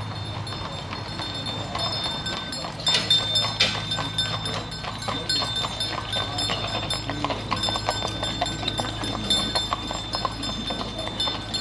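Hooves of two horses clip-clopping on a paved road as they pull a passenger wagon past, louder from about three seconds in.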